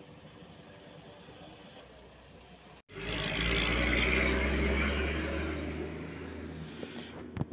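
A heavy truck loaded with logs drives past close by: its diesel engine hums at a distance, grows suddenly loud about three seconds in as the truck reaches the camera, then fades as it moves away. A brief sharp knock comes near the end.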